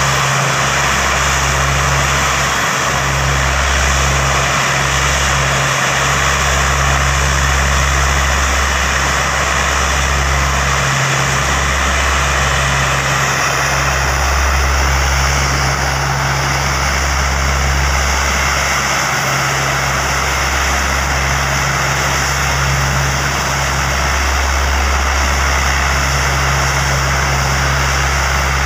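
Turboprop engines of a Lockheed C-130 Hercules running on the ground, a steady loud low drone with a hiss over it, while cars and motorbikes pass close by.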